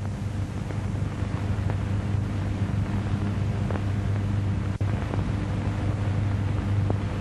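Steady low hum and hiss of a worn 1936 film soundtrack, with faint clicks and pops scattered at irregular intervals.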